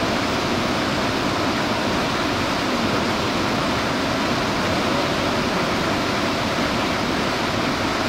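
Waterfall and white water rushing over boulders: a steady, even rush of water.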